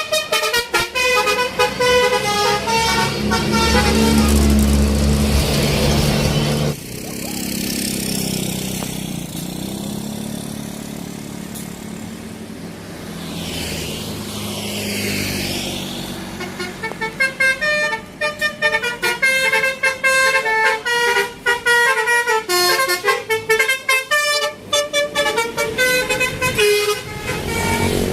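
Telolet bus horn, the multi-tone musical air horn fitted to Indonesian buses, playing quick runs of notes for the first few seconds and again through the last ten seconds. In between there is bus engine and road noise without the horn.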